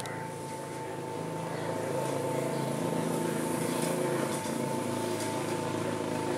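Sri Lanka Railways diesel train approaching, its engine drone growing louder over the first couple of seconds and then holding steady. A steady high tone runs throughout.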